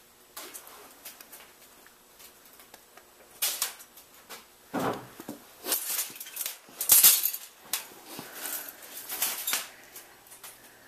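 Metal trap hardware rattling and clanking as a wire cage trap and a metal box are handled, in a run of irregular clanks and scrapes after a few quiet seconds. The loudest clank comes about seven seconds in.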